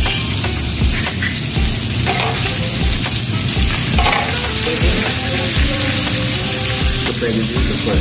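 Pork slices sizzling on a hot tabletop samgyupsal grill pan: a steady frying hiss, with tongs moving the meat around.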